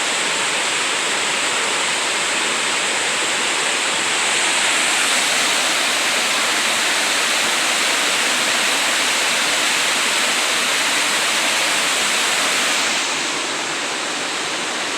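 Waterfall rushing in a steady, loud roar of falling water, dropping a little in level near the end.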